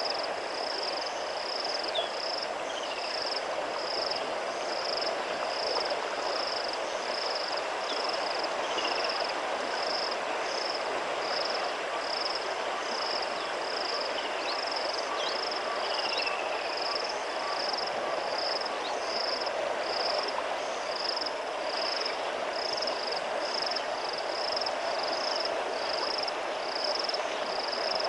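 Wild bush ambience: a high, pulsing call from a small creature repeats steadily about one and a half times a second over an even hiss, with a few faint short chirps now and then.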